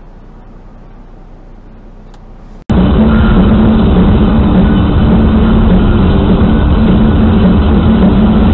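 Faint steady dash-cam cabin noise of a car, then, about two and a half seconds in, an abrupt switch to a much louder, steady, muffled drone from a car driving at night, recorded through a dash-cam microphone.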